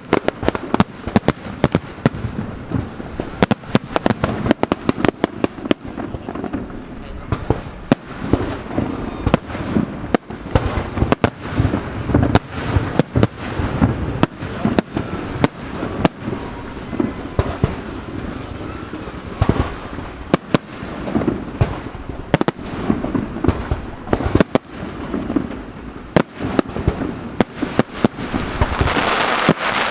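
Aerial fireworks show: shells bursting in rapid, overlapping succession, sharp bangs over a continuous rumble, with a louder hissing crackle swelling near the end.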